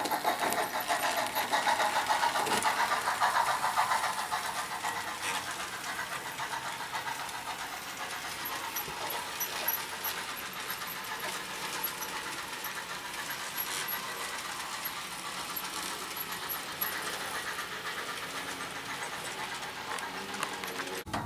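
HO-scale model steam locomotive running with its train of hopper cars, a steady mechanical running sound with a fine quick rhythm. It is louder for the first few seconds, then settles quieter.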